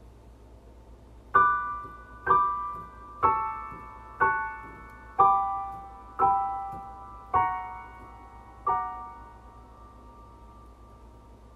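Slow piano melody in a high register: eight chords struck one at a time, about a second apart, each left to ring and fade, with a pause of about three seconds near the end.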